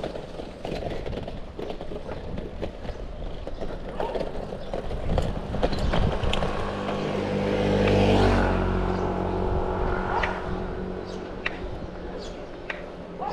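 A motor vehicle's engine passes close by. It swells to its loudest about eight seconds in and then fades, over steady road and wind noise with scattered clicks.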